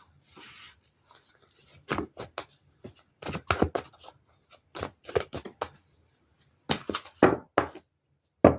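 Tarot cards being handled and laid down on a table: several clusters of short, sharp flicks and slaps, the loudest near the end.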